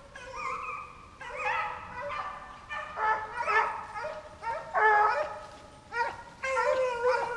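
Hunting hounds baying on a deer's scent trail: a string of drawn-out, pitched bays, one about every half second, some overlapping.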